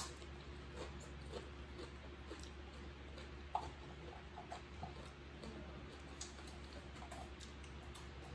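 Soft eating sounds: chewing and lip smacks with scattered small clicks of fingers and food, a little louder once about three and a half seconds in, over a steady low hum.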